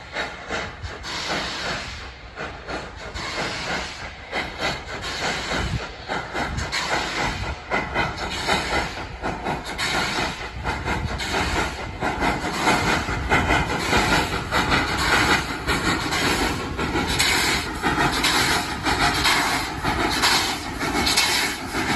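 Steam locomotive running, with hissing steam and a rapid, irregular stream of beats and clatter that grows louder in the second half.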